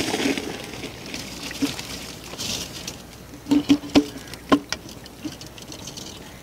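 Raw rice poured into boiling water in an aluminium pot, pattering and hissing as it goes in. This is followed by a handful of sharp metal knocks about halfway through, a spoon striking the pot.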